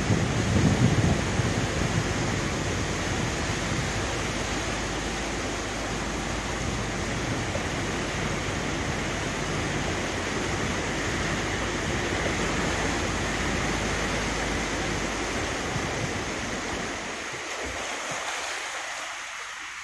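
Floodwater rushing against the front of a jeep as it drives through deep water, a steady churning wash. The deep part of the sound drops away and the wash eases off over the last few seconds.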